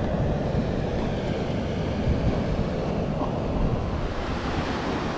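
Steady rushing of river water, with wind buffeting the microphone in a fluttering low rumble.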